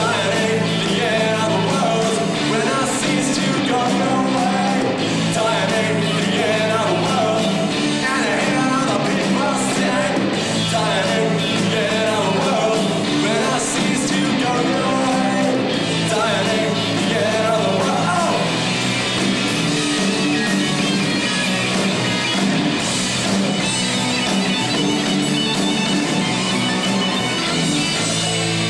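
A rock band playing live: electric guitars, bass guitar and drum kit, with a sung lead vocal over them.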